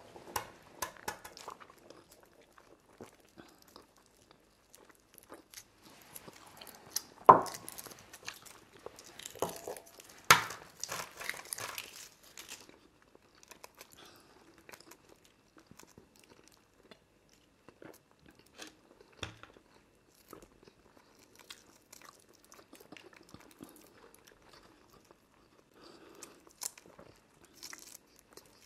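Boiled eggs being cracked and peeled by hand, the shells crackling, with chewing. Two louder sharp knocks, about seven and ten seconds in, stand out above the small crackles.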